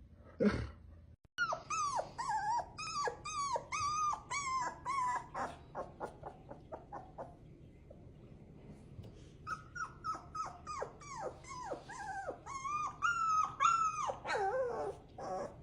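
A dog whining and whimpering in a rapid series of short, high cries, each falling in pitch, about two or three a second, with a pause of a couple of seconds in the middle.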